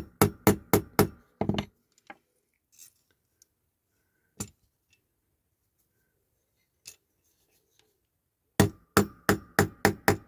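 Quick runs of sharp taps, about six at the start and about eight near the end with one lone tap between, as an old socket is tapped to drive a wheel further down onto the axle of a diecast toy.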